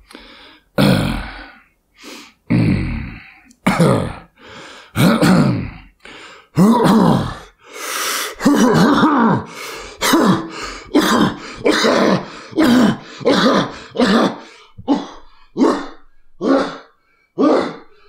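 A man acting out a hard coughing fit of some twenty coughs, spaced a second or more apart at first, then shorter and quicker, about two a second. It imitates 'Tren cough', the coughing fit set off when a trenbolone injection in oil hits a vein and irritates the airways.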